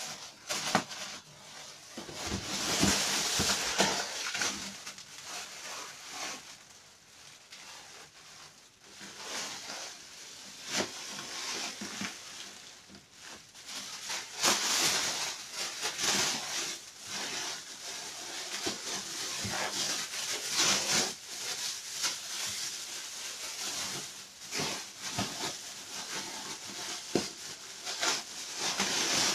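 Plastic wrapping rustling and crinkling in irregular bursts as it is handled and pulled off gun parts, with occasional light knocks.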